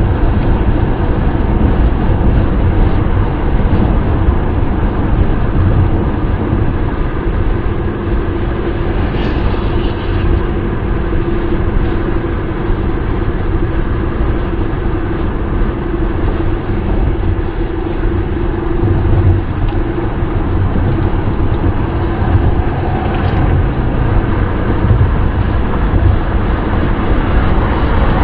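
Steady wind and road noise of a moving car, a deep, even rumble. A faint steady drone runs through the middle stretch, and two faint brief ticks come about a third of the way in and again near the end.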